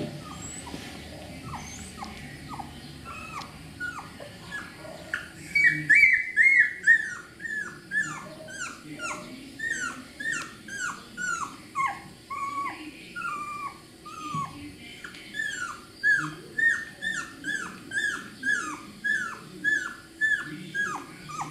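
Young beagle puppy crying, a long run of short whimpering cries, each sliding down in pitch, about two a second; loudest about six seconds in.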